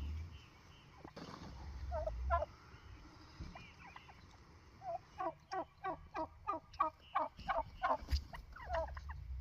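Blue slate turkeys calling: a few scattered calls, then from about halfway a fast run of short repeated calls, around four a second.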